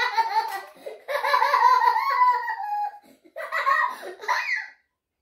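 Laughter in three long bursts, cutting off suddenly near the end.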